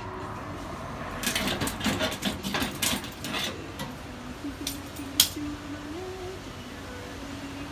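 Metallic clattering and crackling clicks for about two seconds, then one sharp click.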